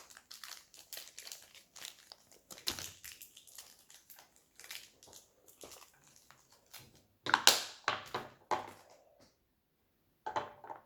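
Plastic blind-pack toy packaging crinkling and tearing as it is handled and opened by hand: irregular crackles, with a louder crinkling burst past halfway and a short one near the end.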